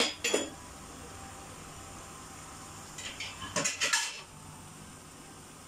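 Onion fritters deep-frying in hot coconut oil in a wok, a steady sizzle, with clinks of kitchenware against the pan right at the start and a quick run of them about three to four seconds in.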